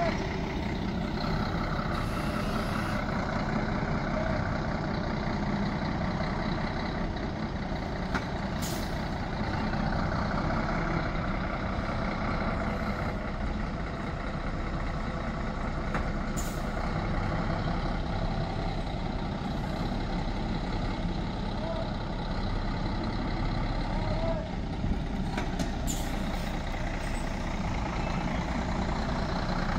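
A diesel tractor-trailer hauling a 40-foot container trailer, running steadily as it manoeuvres slowly. Short air-brake hisses come about three times.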